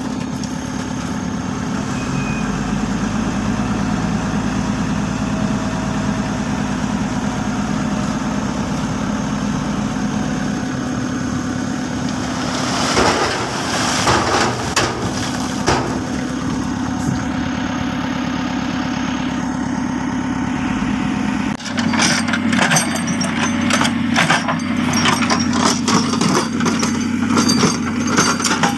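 JCB backhoe loader's diesel engine running steadily while the machine works the road. Around the middle and again through the last quarter, the engine note changes and is joined by frequent clanks and knocks.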